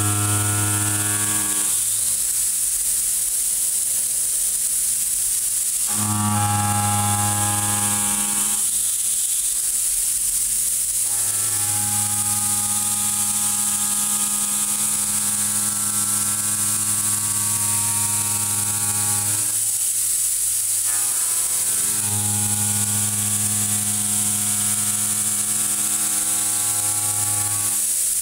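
Kennametal Mill 4-12 KT tangential shoulder mill roughing 4140 steel on a DMG MORI DMU-50 machining centre: a steady low humming tone with overtones from the cutter in the steel, over a constant hiss. The hum drops out for a few seconds three times and comes back at the same pitch.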